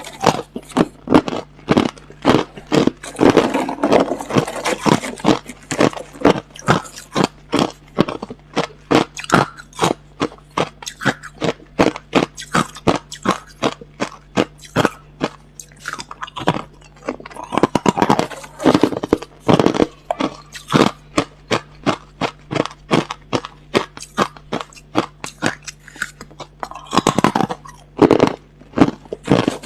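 A person chewing hard, clear crushed ice close to the microphone: loud, sharp crunches about two to three a second, thickening now and then into dense bursts of crunching.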